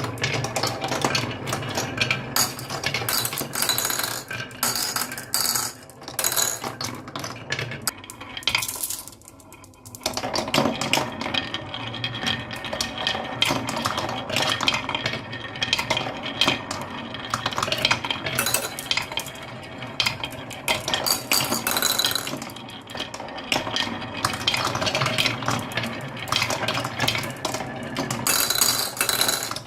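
Many glass marbles rolling and clattering down a wooden marble run, a dense run of clicks and clacks with a brief lull about nine seconds in.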